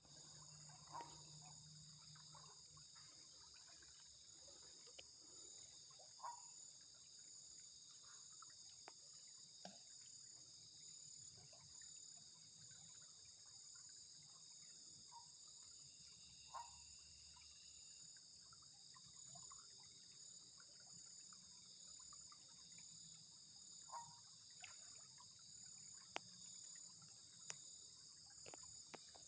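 Steady high-pitched chorus of insects such as crickets, with a few short chirps at intervals and a couple of sharp clicks near the end.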